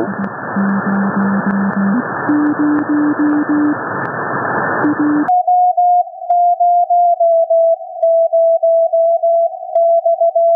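Morse code (CW) signal on the 160-metre band, heard through an SDRplay RSPdx receiver. For the first five seconds it is a low keyed tone under loud band hiss, stepping up in pitch about two seconds in as the receiver is retuned. Then the hiss cuts off suddenly as CW mode and its narrow filter are selected, leaving a clean, higher tone keyed on and off.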